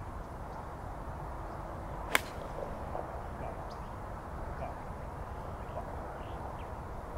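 A golf club strikes a golf ball once, a single sharp crack about two seconds in, over a steady low outdoor rumble.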